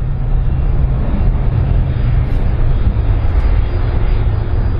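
Airbus A310-304 airliner's jet engines running as it rolls along the runway, a steady loud roar with a strong low rumble.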